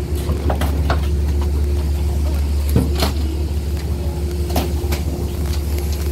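Steady low hum of a Metro-North passenger train standing at the platform, with a series of short sharp knocks from footsteps on the coach's metal vestibule steps during boarding.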